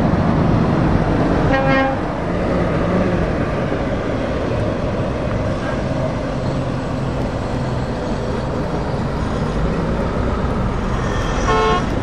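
Heavy trucks driving past in a convoy, engines and tyres running steadily, loudest in the first two seconds. A short truck horn blast sounds about two seconds in, and another near the end.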